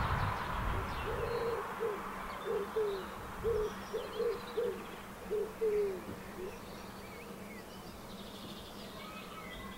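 Eurasian collared doves cooing: a run of short, low notes in twos and threes over about five seconds, some falling off at the end, with faint high chirps of small birds.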